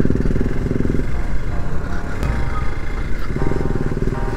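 Hero Xpulse 200 4V's single-cylinder engine running while riding, its lower note dropping back for a couple of seconds in the middle before picking up again. Soft background music plays over it.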